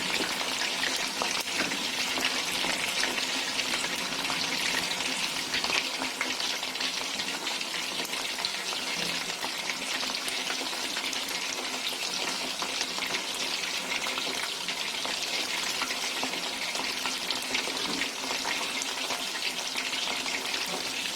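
Marinated chicken pieces deep-frying in hot oil: a steady sizzle with constant fine crackling pops.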